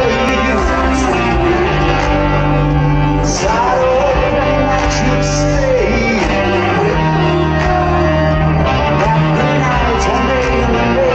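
Live rock band heard through the concert sound system from the crowd: electric guitar, bass and drums playing, with a singing voice over them.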